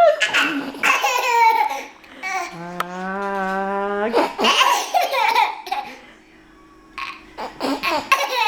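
A toddler laughing in bursts at a mother's pretend sneezes. One sneeze lands right at the start, and a second, drawn-out 'ahh… choo', breaks about four seconds in, each followed by giggling laughter.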